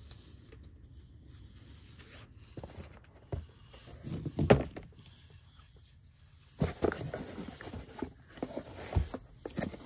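Scattered knocks, clicks and scrapes of hands and tools at work. A cluster comes about four seconds in, and a busier run starts at about six and a half seconds.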